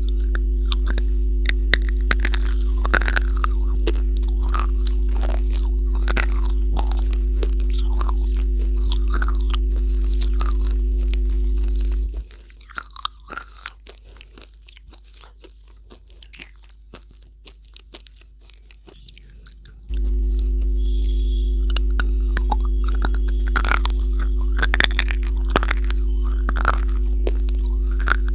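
Close-miked crunching and chewing as a hard, chalky white piece is bitten and chewed, with many sharp crunches. A steady electrical hum lies under most of it and drops out for about eight seconds near the middle, where the crunches turn faint.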